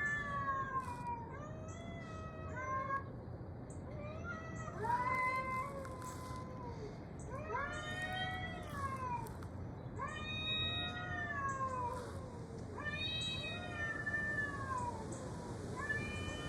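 Cat meows made by a dinosaur that plays cat sounds: about eight drawn-out calls, each rising then falling in pitch, a second or two apart.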